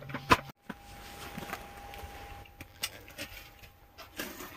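Handling noise from a camera being moved around: a string of sharp clicks and knocks with some rubbing, the loudest a hard knock about a third of a second in, followed by a brief dropout. A faint steady whine runs underneath.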